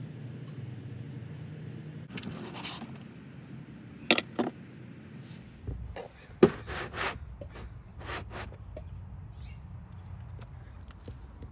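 A series of sharp knocks, clatters and scrapes over a low steady hum, with a deeper rumble setting in about halfway through.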